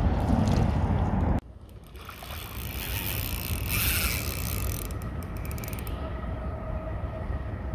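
A loud low rumble cuts off suddenly about a second and a half in. Then a spinning reel is wound steadily, retrieving a lure on light line.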